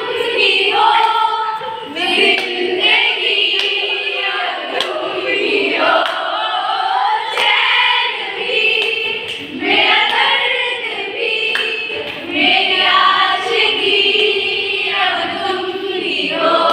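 Women singing together.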